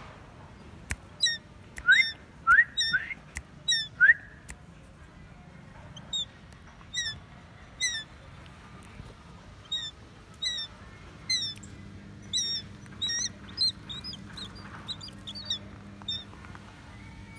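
Young shikra calling over and over with short, high, slightly falling squeals, roughly one a second. The loudest calls rise in pitch and come about two to four seconds in.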